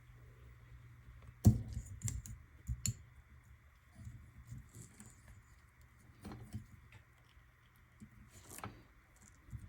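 Scattered small clicks and knocks of tools and small parts being handled on a workbench during soldering work, with the loudest knock about a second and a half in, over a faint steady hum.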